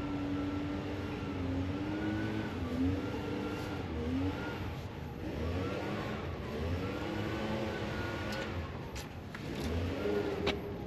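A motor running, its pitch swelling up and down every second or two, with a few sharp clicks near the end.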